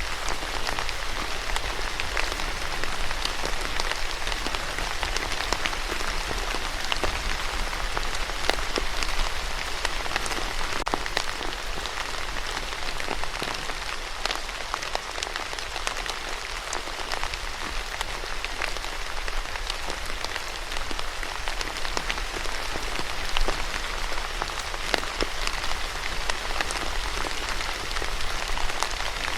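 Steady rain falling on a surface, a continuous hiss with individual drops ticking through it.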